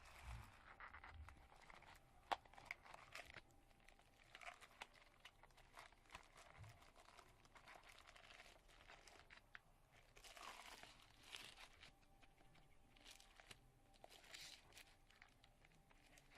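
Faint rustling and crinkling of packaging and paper being handled, with scattered light clicks and taps and a few longer rustles.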